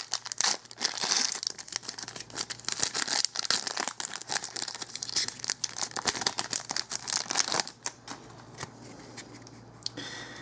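Foil trading-card pack wrapper being torn open and crinkled by hand, a dense crackling with sharp clicks. It dies down about three-quarters of the way through, leaving quieter handling as the cards come out.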